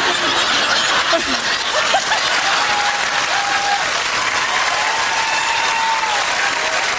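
Studio audience laughing and applauding loudly. A voice holds a few long, level notes through the middle: the vocal sound effects for Santa's reindeer.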